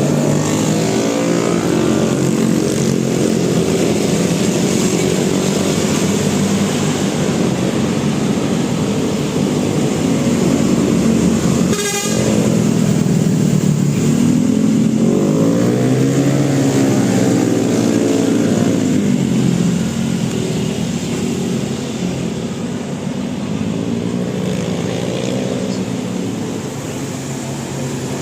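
Large buses driving past with their engines running, mixed with telolet horn tones; the pitch rises and falls as vehicles pass in the middle, and there is one sharp click about halfway through.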